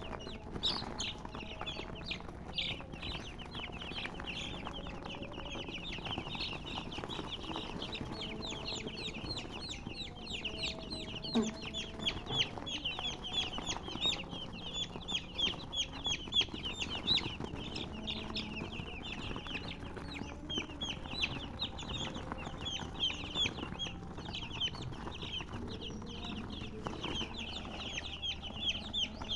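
Chickens chirping: a steady stream of many short, high-pitched chirps, overlapping several to the second, with an occasional lower cluck.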